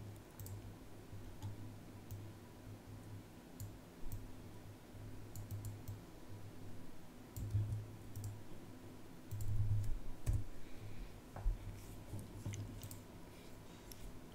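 Scattered, irregular small clicks of computer input at a desk, over a steady low hum, with a few dull low bumps a little past the middle.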